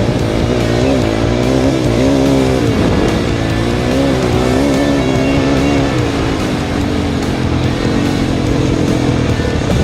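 A vehicle engine running, its pitch rising and falling repeatedly as the throttle varies, with music playing over it.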